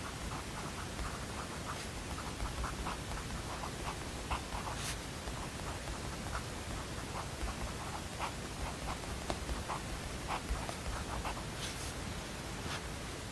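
Steady white-noise hiss with a pen or pencil writing on paper over it: many small, irregular scratchy ticks, a few sharper ones near the middle and near the end.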